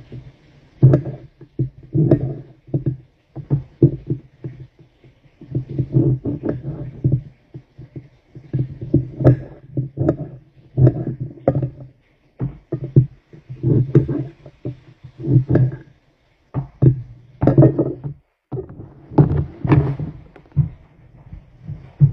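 A series of dull, low knocks at uneven intervals, sometimes several to a second, with a few short pauses.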